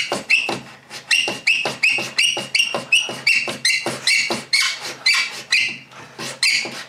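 Lie-Nielsen No. 66 beading tool's steel blade scraping along a fluted wooden strip in quick back-and-forth strokes, about four a second, each stroke a squeaky scrape that sounds horrible. The strokes pause briefly about a second in and again near the end.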